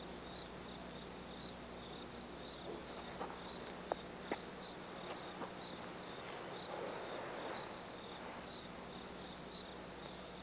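Crickets chirping steadily at an even pulse, as night-time ambience. A few sharp clicks sound about three to four seconds in, and a soft rustle follows a few seconds later.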